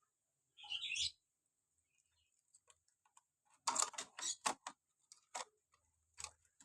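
A short high chirp about half a second in, then a quick run of sharp clicks or taps a little past the middle, with two more single clicks near the end.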